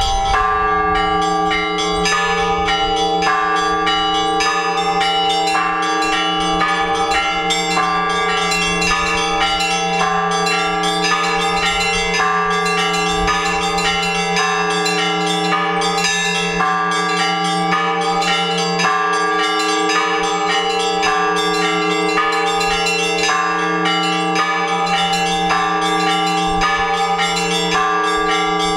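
Orthodox church bells rung together: smaller bells struck in a quick, steady rhythm of several strikes a second over the sustained hum of the larger bells.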